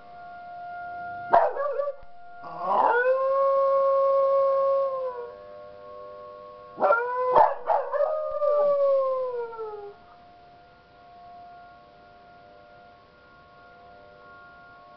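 Beagle howling along with a tornado-warning siren. First a sharp yip, then a long held howl, then a couple of barks and a second howl that slides down in pitch. The siren's faint steady tone runs underneath throughout.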